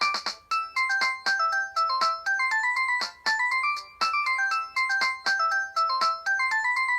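A preloaded ringtone playing on a Huawei U2800A phone: a quick melody of short, fast-fading electronic notes that climb in stepping runs.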